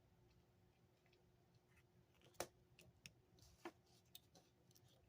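Faint clicks and taps of tarot cards being handled and laid down, the loudest about two and a half seconds in, a few softer ones after it.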